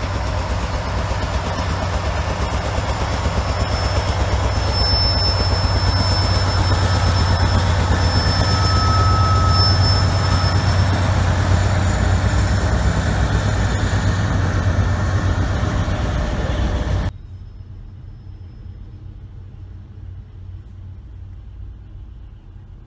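Freight diesel locomotives, a CN GE ET44AC among them, passing close by, their engines running with a steady low rumble that grows louder over the first ten seconds. A little past halfway it cuts suddenly to a much quieter low hum heard from inside a car.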